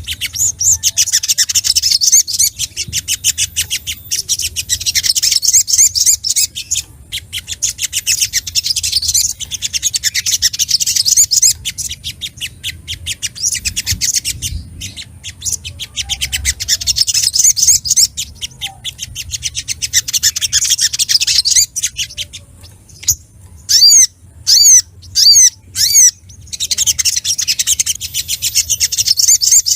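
Little spiderhunter (sogok ontong) singing: fast, high chattering trills in bursts of a few seconds with short pauses between. In the pause a little past the middle, about 23–26 seconds in, it gives a series of separate loud, sharp single calls.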